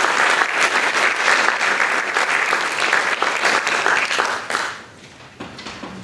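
Audience applauding at the end of a talk, the clapping dying away about five seconds in.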